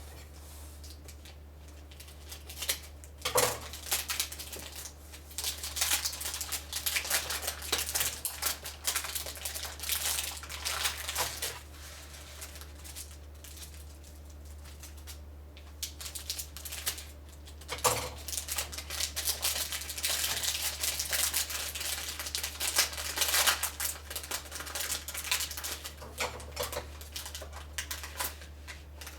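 A MoYu GTS3 3x3 speed cube being turned fast, its plastic layers clicking and clacking in dense runs with a couple of short pauses, over a steady low electrical hum.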